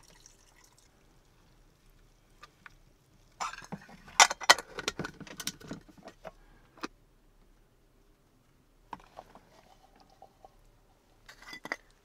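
Water poured from a metal mug into an opened can of mixed beans to rinse them, and the wet beans tipped out into a steel pot. This makes a few seconds of splashing and knocking, starting about three and a half seconds in, with fainter handling sounds later.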